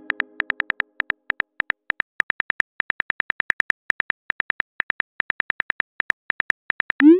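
Virtual-keyboard typing sound effect from a texting-story app: rapid, evenly spaced clicks, about seven a second, each with a short high tone, as a message is typed letter by letter. Near the end there is a short rising swoop as the message is sent.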